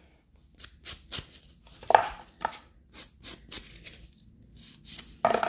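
A hand-held grit nail file rasping in short, irregular strokes, a few a second, over plastic nail tips, buffing off their shine before gel application. One stroke about two seconds in is louder than the rest.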